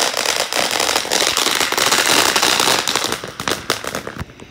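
A string of firecrackers going off: a dense, rapid crackle of sharp pops that thins out to a few separate bangs near the end.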